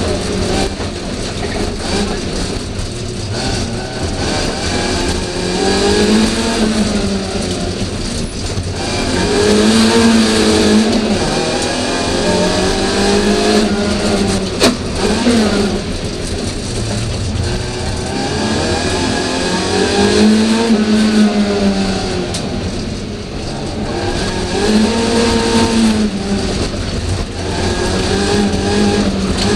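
BMW E30 rally car's engine heard from inside the stripped cabin, driven hard: it revs up again and again and drops back between pulls, with one sharp knock about halfway through.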